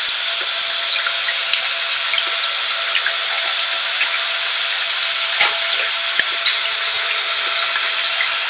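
Rain mixed with a vacuum cleaner running steadily: an even, unbroken hiss with a faint steady motor whine and scattered light ticks of drops.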